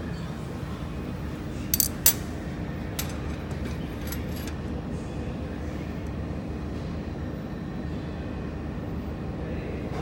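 Steady hum of a fiber laser welding machine running, with two sharp clicks about two seconds in and a few fainter ticks shortly after.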